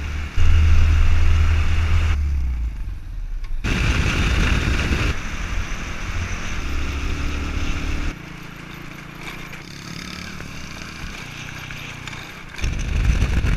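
Small motorbike engine running at road speed, with wind rushing over the microphone. The sound jumps abruptly in loudness and tone several times as separate riding clips follow one another.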